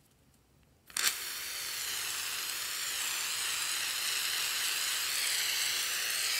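Aerosol can of Gillette Foamy shaving cream spraying foam in one long continuous hiss, starting with a sharp burst about a second in and then running steadily.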